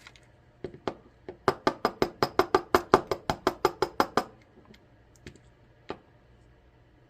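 Rapid run of about fifteen light, sharp taps, some six a second for under three seconds, with a few single clicks before and after, as the springs are worked out of the ASSA Twin 6000 lock cylinder.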